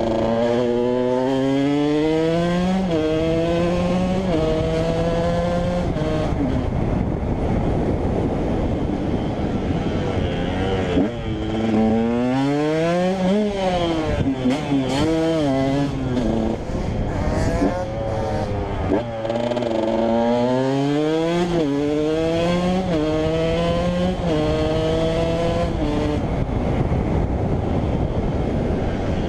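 KTM 125 EXC two-stroke single-cylinder engine accelerating through the gears, its pitch climbing and dropping at each shift, with a quick rev up and back down in the middle before it pulls up through the gears again.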